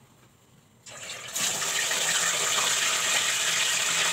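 Whole chicken going into hot oil in a stainless steel pot: the oil starts sizzling loudly about a second in and keeps up a steady, sharp hiss.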